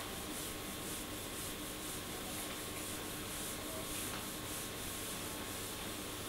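Whiteboard duster rubbing across a whiteboard, wiping off the writing in quick, even back-and-forth swipes, a few a second.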